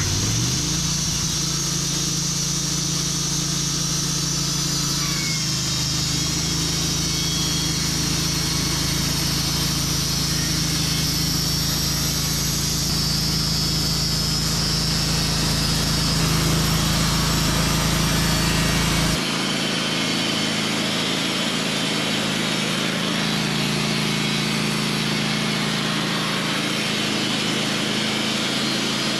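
Sawmill running steadily as it saws boards from a hemlock log, its engine note and blade noise constant. About two-thirds of the way through the low engine note drops abruptly and the running carries on at a changed pitch.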